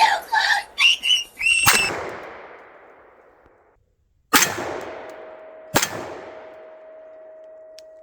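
Three shots from a Sig Sauer P226 9mm pistol, about two seconds in, four seconds in and six seconds in, each trailing off in a long echo. Short pitched voice-like sounds come just before the first shot, and a faint steady ringing tone lingers after the second.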